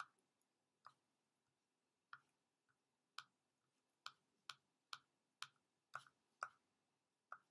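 Faint, irregular clicking of a computer mouse while navigating a web page: about a dozen short sharp clicks, coming closer together in the second half.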